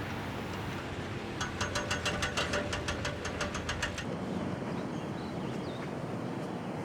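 Steady low engine rumble, with a quick run of regular ticking, about four or five a second, for a couple of seconds starting about a second and a half in.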